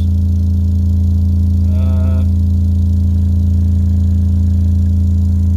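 Pyramid car subwoofer, mounted inverted in a home-audio sub box, playing a steady 28 Hz sine test tone: a loud, unbroken drone heard mostly as its higher overtones. It is being pushed hard enough that the voice coil is starting to smell.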